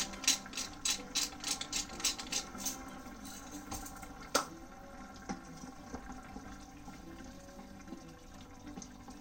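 Wooden pepper mill grinding, a crunching click about three times a second for the first three seconds. There is one sharp knock about four seconds in, then the quieter sound of rice simmering in water in a saucepan.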